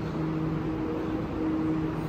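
Santiago Metro Line 2 train (Alstom NS-04/NS-16 stock) running through the station: a steady low hum over an even rumble.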